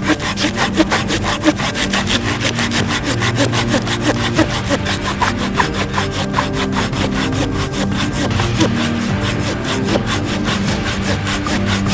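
Wicked Tree Gear folding handsaw's high-carbon steel blade cutting into a tree, in quick, even back-and-forth strokes, several a second, with no let-up.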